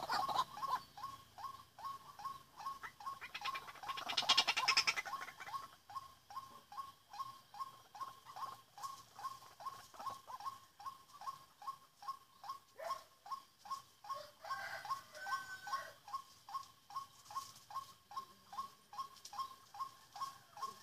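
White-breasted waterhen calling: short notes repeated monotonously at about two a second. There is a brief louder noisy burst about four seconds in.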